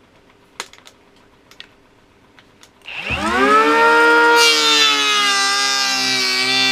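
Parkside 12 V brushless cordless planer: a few faint handling clicks, then its motor spins up about three seconds in with a quickly rising whine that settles to a steady pitch. About a second and a half later a hiss of cutting joins the whine as the blades plane the wood at depth setting 3.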